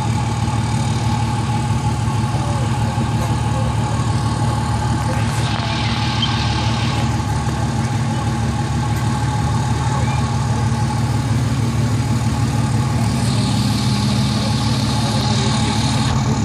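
Pickup truck engines idling with a steady low hum. A hiss of noise swells over it twice, about five seconds in and again near the end.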